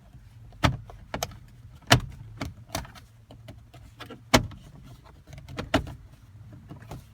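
Plastic dashboard trim being pressed and knocked into place, with about eight sharp, irregularly spaced clicks and knocks as the panel clips are seated.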